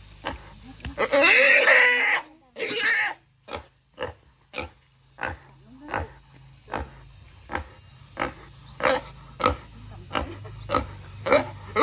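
Wild boar squealing loudly twice in the first few seconds, then grunting in short, regular grunts about twice a second.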